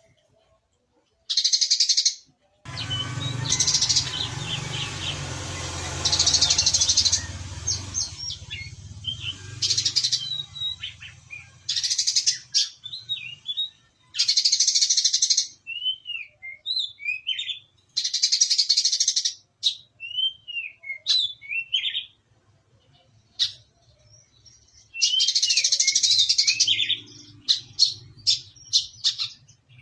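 Brown-throated sunbird (kolibri kelapa) singing: repeated bursts of fast, buzzy trills broken by short rising and falling whistled notes, ending in a quick run of sharp chirps. A low rumbling noise sits under the song for several seconds near the start.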